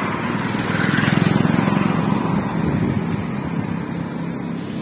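Highway traffic noise, with a passing motor vehicle swelling louder about a second in and fading.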